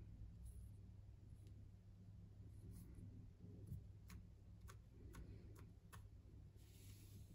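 Rubber stamp with a wooden knob handle tapped on an ink pad to ink it: a soft thump, then five light taps about half a second apart, with a short rustle near the end.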